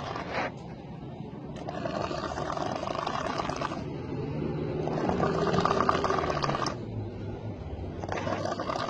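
A sleeping person snoring, a rough, rattling snore about every three seconds, each drawn out for nearly two seconds.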